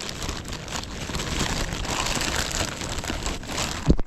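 Close crinkling and rustling of plastic bags and fishing tackle being rummaged through in search of a trace. It runs as a dense crackle and stops abruptly at the end.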